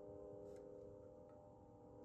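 Faint, continuous low mechanical hum of unidentified origin, heard outdoors at night, made of several steady tones held together without change. Two faint ticks come through about half a second and a second and a quarter in.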